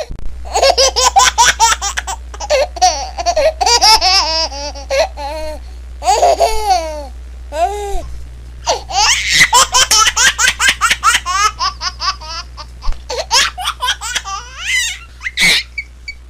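A baby laughing in repeated bursts of quick, high-pitched giggles and squeals, with a brief lull about halfway through. A steady low hum runs underneath.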